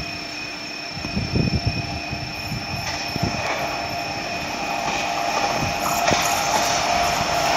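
Approaching Indian Railways diesel locomotive, a steady engine whine over a rumble that grows louder as it nears, with wind buffeting the microphone in the first couple of seconds.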